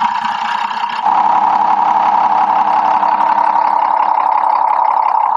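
Cummins ISC inline-six diesel engine of a motorhome idling steadily, heard close up at the open rear engine bay, with a steady high hum over it. About a second in the sound shifts slightly and gets a little louder.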